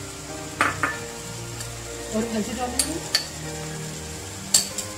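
Chicken frying in oil in a metal karahi, a steady sizzle with about seven sharp clicks and knocks of a spoon against the pan as spices go in.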